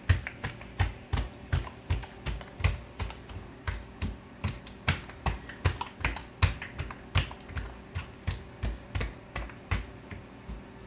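Hands tapping and slapping a sheet of ghee-greased feteer dough against the work surface while stretching it thin: a quick, uneven run of soft thuds and taps, about four a second.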